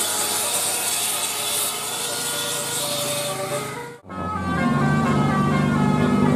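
Intercity bus passing with a loud rushing sound and scattered pitched tones. The sound breaks off abruptly about four seconds in and resumes with another bus's steady low tone.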